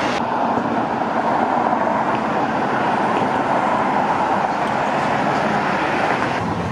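Steady road traffic noise, a continuous rushing that changes character abruptly just after the start and again near the end.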